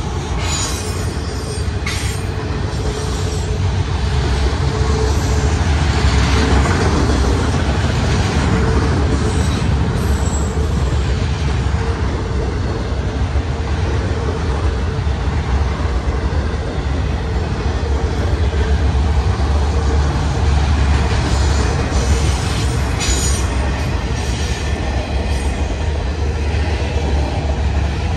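BNSF freight train of autorack cars rolling past close by: a steady, loud rumble of steel wheels on the rails.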